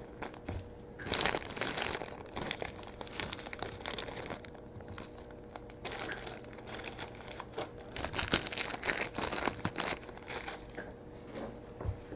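Crinkling and rustling of packaging as trading cards are handled, in irregular spells with a few brief tearing sounds.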